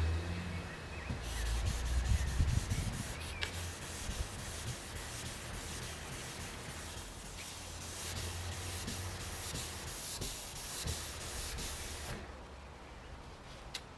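Wet sandpaper rubbing in quick repeated strokes on a Saab 9-3 Aero's painted bodywork, a gritty rasping hiss that stops about two seconds before the end.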